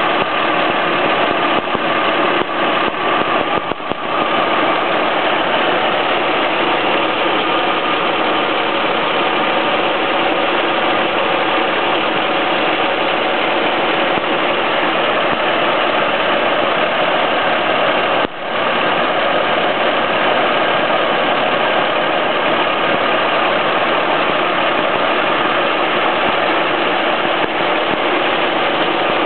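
1958 Rolls-Royce Silver Cloud I's F-head inline-six engine running steadily, heard with the bonnet open. Most of the noise is the engine's cooling fan; the engine itself is near silent.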